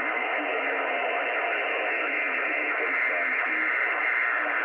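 Receiver audio from an ICOM IC-706MkIIG HF transceiver tuned to 7.156 MHz on the 40-meter amateur band: a steady, narrow hiss of band noise with faint, broken traces of a weak voice underneath.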